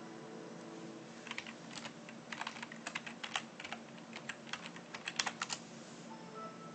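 Password being typed on a computer keyboard: an irregular run of key clicks starting about a second in and lasting some four seconds.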